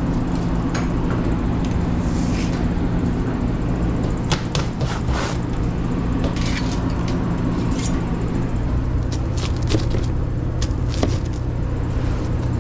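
Steady low drone of a conveyor pizza oven and kitchen ventilation, with scattered metal clinks and clacks as tongs handle a mesh pizza screen at the oven, and a long rocker knife cutting a pizza on a board near the end.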